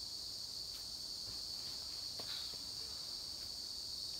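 Steady, high-pitched shrill of an insect chorus in summer woodland, unbroken throughout, with a few faint taps as the climber steps onto the rock and grabs the first holds.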